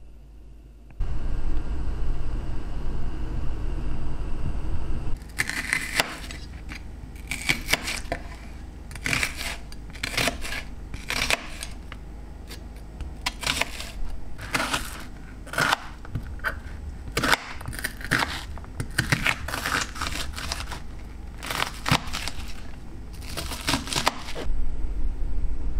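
Kitchen knife slicing and chopping a red onion on a plastic cutting board: a long run of sharp, irregular knife strokes against the board, one or two a second, starting about five seconds in. Before that, a few seconds of steady low rumble.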